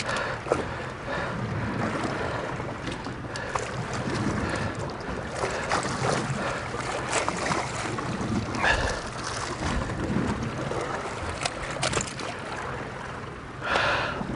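Wind buffeting the microphone and water splashing against the side of a boat, with scattered short knocks.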